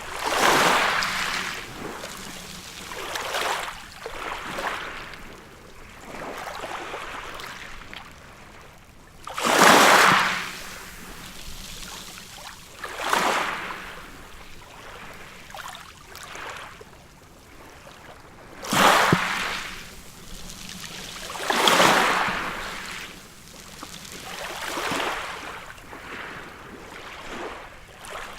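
Ocean waves breaking on a beach: each wave comes in as a rushing wash that swells and fades, with the biggest crashes about every three to nine seconds over a steady surf hiss.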